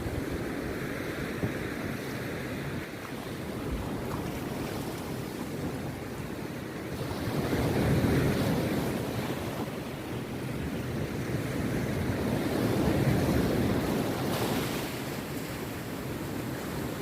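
Rough sea waves breaking and washing up a beach in a continuous rush, swelling loudest about eight and again about thirteen seconds in.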